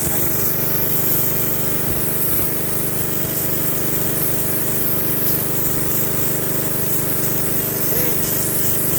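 6.5 HP engine-driven 200-bar pressure washer running steadily at full throttle, with the hiss of its high-pressure water jet spraying.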